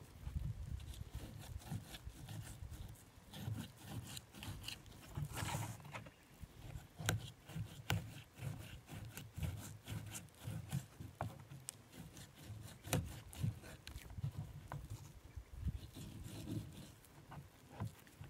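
A knife scraping and tapping on a plastic cutting board as it is worked under the skin of a flathead fillet. Irregular sharp clicks and dull low thuds come throughout.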